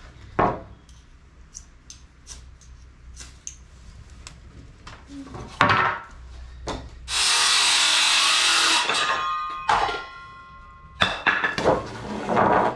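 Wooden boards knocking and clattering on a concrete floor as lengths of 2x4 lumber are dropped and laid out. About seven seconds in comes a loud steady rushing noise lasting about two seconds that ends in a few ringing tones, and a quick run of knocks and clatter follows near the end.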